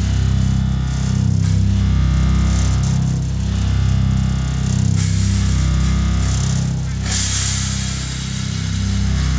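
Loud music with a heavy bass line whose notes change about every half second, recorded live in the room, not added afterwards. A burst of hiss comes in about seven seconds in.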